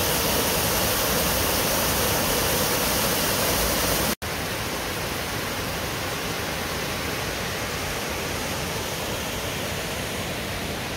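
Waterfall pouring into its pool: a steady rush of falling water. It breaks off for an instant about four seconds in and goes on a little quieter.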